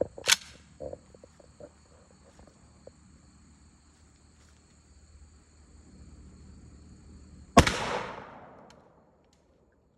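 A single shot from a JTS AK-style 12-gauge semi-automatic shotgun firing a 2 3/4-inch, 1-ounce high-brass slug, about seven and a half seconds in: a sharp report whose echo trails off over about a second and a half. Crickets chirp steadily before the shot.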